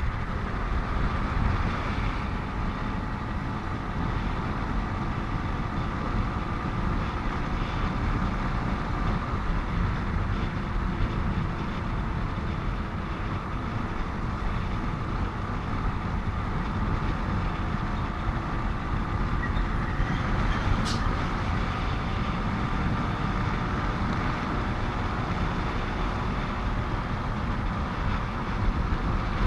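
Steady road noise of a motorcycle riding in highway traffic, engine and wind rush with heavy vehicles around. A brief high-pitched squeal cuts through about two-thirds of the way in.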